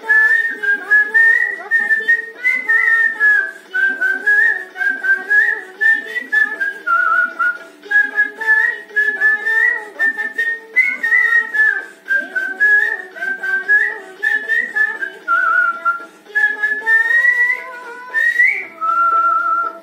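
A man whistling a film-song melody in phrases that glide from note to note, over the song's instrumental accompaniment. The whistled tune stops just before the end, leaving the accompaniment.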